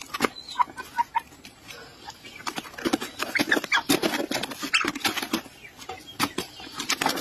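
Chicken clucking and squawking in short calls, over a crackling, rustling plastic tarp as it scuffles with a cat on it.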